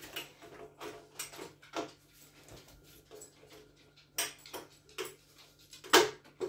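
Stainless-steel chicken plucker drum being handled and fitted together: a string of light clicks and metallic knocks, the loudest a sharp knock near the end.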